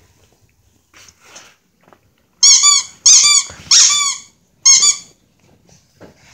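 A squeaky dog toy squeezed four times in quick succession, starting about two and a half seconds in. Each squeeze gives a loud, high squeak that bends in pitch.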